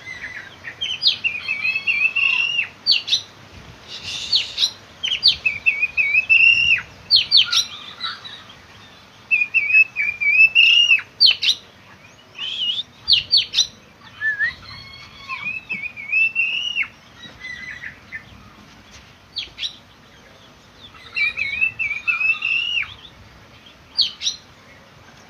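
Oriental magpie-robin (kacer) in full song: repeated phrases of sharp whistled upslurs and a warbling run, sung in bouts with short pauses between them.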